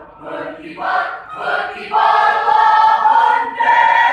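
Mixed choir of men's and women's voices singing together: short, separate notes for about two seconds, then a louder held chord that is sustained to the end.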